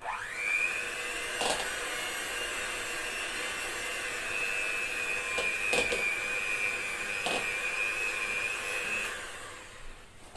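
Electric hand mixer switched on, its whine rising to speed, then running steadily as it beats vegetable shortening frosting base until fluffy, with a few sharp clicks of the beaters against the bowl. It stops shortly before the end.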